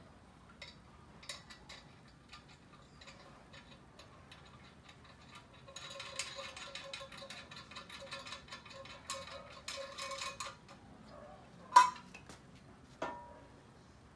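Steel parts of a home-built hydraulic press frame being fitted and bolted by hand: scattered light metal clicks, a run of rapid ticking for about four seconds in the middle, then a sharp metal clank with a brief ring and a smaller clank near the end.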